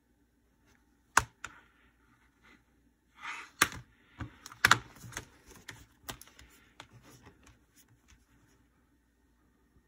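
Plastic Blu-ray case being handled and snapped open: a run of sharp plastic clicks and snaps with some rustling, densest in the middle and thinning out toward the end.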